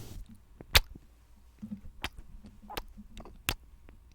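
ASMR mouth sounds close to the microphone: a few irregular, sharp wet clicks and pops, the loudest about a second in.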